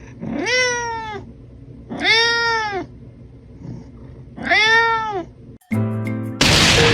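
A domestic cat meows three times, each meow under a second long and rising then falling in pitch. Near the end a buzzing tone gives way to a loud rushing noise.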